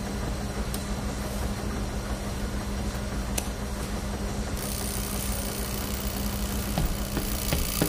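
Steady mechanical hum and low rumble of laundromat washing machines and dryers running, with a few faint clicks.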